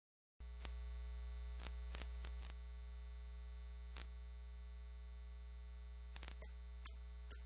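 Faint steady electrical hum with a few scattered clicks. It cuts in suddenly about half a second in, after a moment of dead silence.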